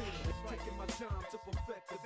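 Background music with a steady bass line and melodic tones, which cuts out briefly near the end.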